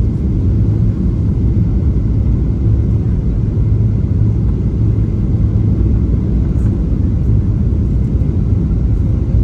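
Steady low rumble inside the cabin of a Boeing 737-700 on final approach: its CFM56-7B jet engines and the airflow over the airframe.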